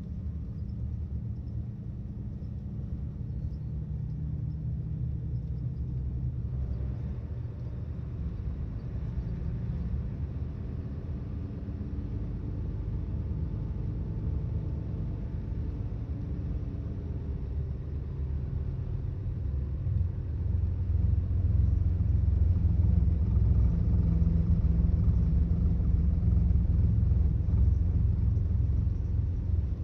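Volvo 8700 bus's diesel engine running, heard from inside the bus as a low rumble that grows louder about twenty seconds in.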